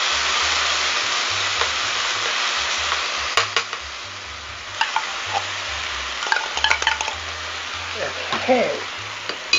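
Tomato paste and water sizzling in a hot skillet of vegan ground-meat mixture while a spoon stirs it. The hiss is strongest for the first three seconds and then eases, and from about three seconds in there are sharp clicks and scrapes of the spoon against the pan.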